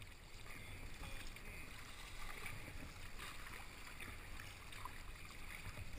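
Water lapping and splashing around a kayak as it is paddled through a light chop from behind, with soft irregular paddle splashes and a low wind rumble.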